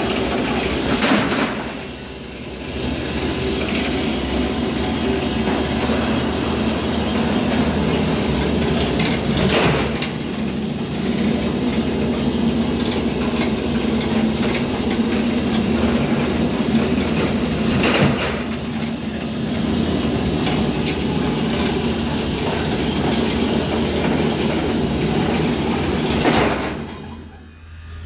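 Wire straightening and cutting machine running, rattling steadily with a hum as steel wire is drawn through its straightening rollers. A sharp clank comes about every eight to nine seconds, four times in all, as a length of straightened rod is cut off. The running falls away near the end.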